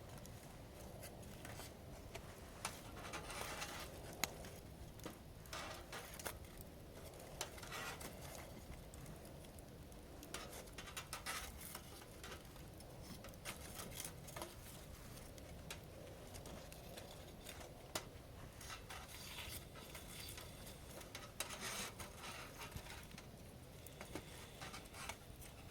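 Wood fire crackling, with irregular sharp pops and short bursts of crackle, the loudest pop about four seconds in.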